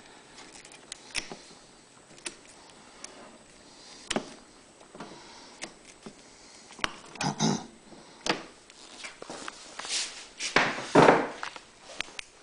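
Hand work on a generator's rubber fuel hose: scattered light clicks and knocks from tools and parts being handled. Two longer rasping sounds, about seven and eleven seconds in, are the hose being cut, the second one the loudest.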